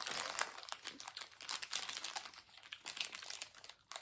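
Plastic snack wrapper crinkling, with quick irregular crackles as it is handled and unwrapped.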